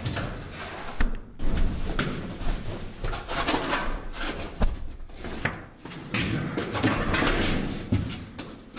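A door being handled: irregular knocks and clicks with scraping and rattling between them, the sharpest knocks about a second in, two seconds in, halfway through and near the end.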